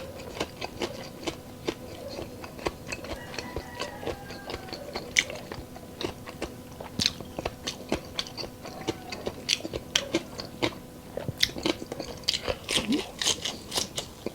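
Close-miked eating: irregular crunching and chewing of crispy fried food, typical of chicharon bulaklak being bitten and chewed, with a faint steady hum underneath.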